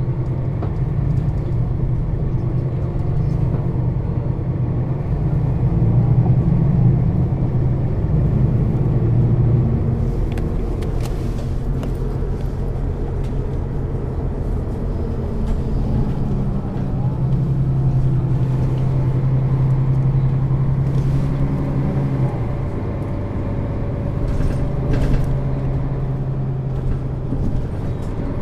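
Setra S 415 NF low-floor city bus's diesel engine running, a steady low drone that rises and falls in pitch, with a few short clicks and knocks.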